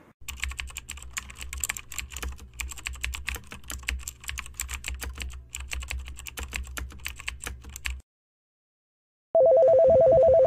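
Rapid keyboard-typing clicks over a low hum for about eight seconds, then a break and a loud telephone ring near the end, a warbling two-tone trill.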